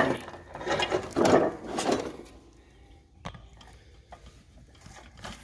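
Metal clattering and scraping from parts and tools handled on a steel mower deck: several loud rattles in the first two seconds, then a few faint clicks.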